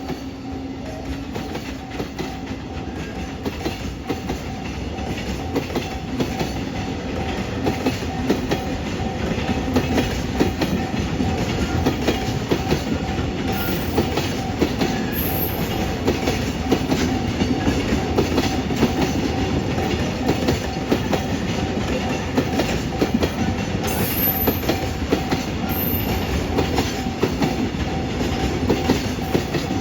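A freight train of Koki container flatcars rolling past, its wheels clacking steadily over the rail joints above a continuous rumble, with a faint steady ringing tone from wheel and rail.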